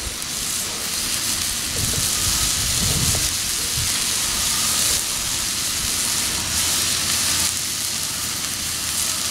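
Steak sizzling steadily on a hot Pit Boss flat-top gas griddle: an even, continuous hiss of the meat searing.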